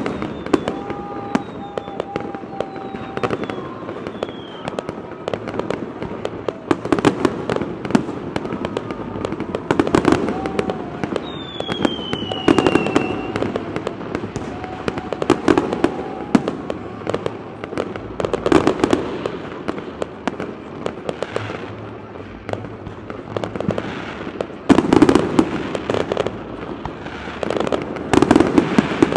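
Fireworks display: aerial shells bursting in a steady run of bangs and crackles, louder clusters of bursts coming together several times. A few high whistles sound among them, one falling in pitch about eleven seconds in.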